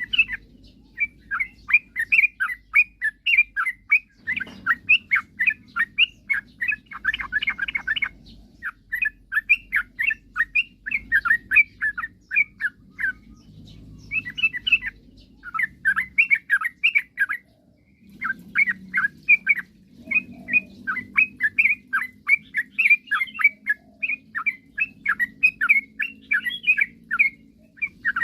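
Yellow-vented bulbul (trucukan) singing its chattering song: quick runs of short notes, about four a second, in phrases of a few seconds broken by brief pauses.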